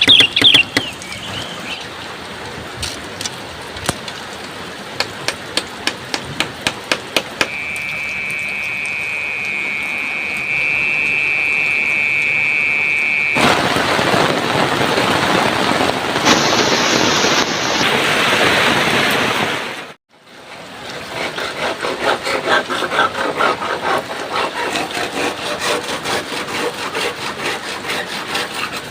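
A run of outdoor work sounds: first sharp repeated knocks of wood being struck, then a steady high whistling tone for about six seconds. A loud rushing noise of heavy rain follows and cuts off abruptly about twenty seconds in, then rhythmic strokes at about three a second.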